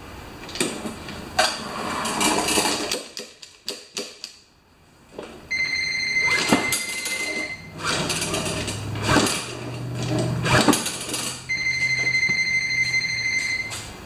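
Starter rope being pulled several times on a Honda GCV190 mower engine, each pull a rasping swish, without the engine starting; the recoil starter's rewind spring is broken. A steady high-pitched tone also sounds twice, about two seconds each time.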